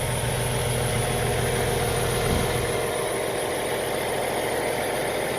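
Semi truck's diesel engine idling steadily, with a brief knock about halfway through, after which the deepest rumble eases.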